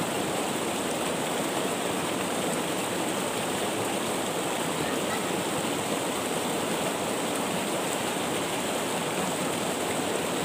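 Shallow river rushing steadily over and between boulders: an even, unbroken water noise.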